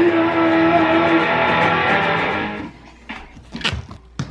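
Electric guitar played through an amplifier: strummed chords under a held note, stopping and fading out about two and a half seconds in. A couple of sharp knocks follow near the end.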